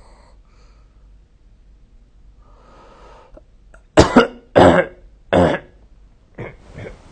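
A sleeping person coughs three times in quick succession, short and loud, after a few seconds of faint breathing, then gives two weaker coughs near the end.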